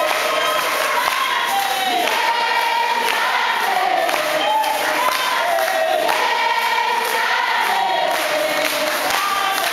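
A large group of children singing a song together in high voices, with hand clapping.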